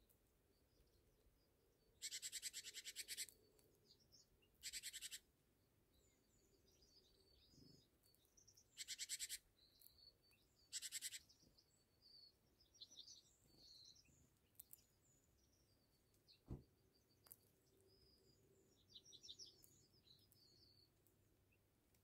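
Outdoor winter quiet with faint, scattered high bird chirps, broken by four loud, fast rattling bursts, each lasting from about half a second to just over a second, the first about two seconds in.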